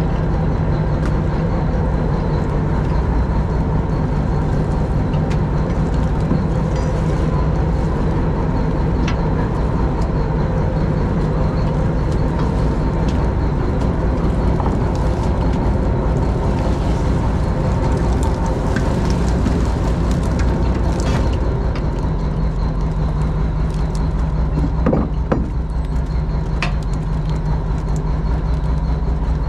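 An engine running steadily at a constant speed, with a few light knocks.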